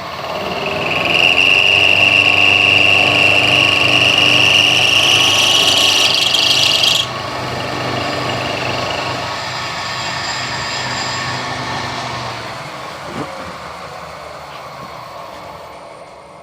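Milling machine cutting a slot, with a steady high whine while the cutter takes its conventional-milling pass. The cutting noise stops suddenly about seven seconds in, the machine runs on, then winds down and fades near the end.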